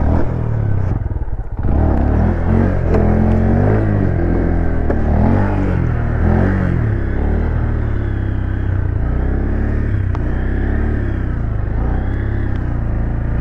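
Motorcycle engine revving up and down as the rider holds a wheelie, the engine note rising and falling over and over, with a brief drop in throttle about a second in.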